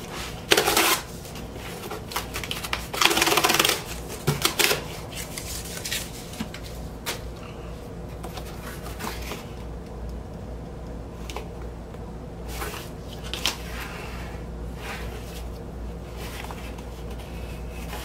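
Corrugated cardboard record mailer being opened by hand: two loud rasps of cardboard tearing or scraping about half a second and three seconds in, then quieter rustling and small clicks as the tear-strip flap is worked open.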